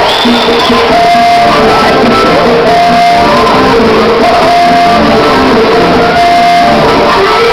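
Loud music for a quadrilha dance, with a melody of repeated held notes over a steady rhythm.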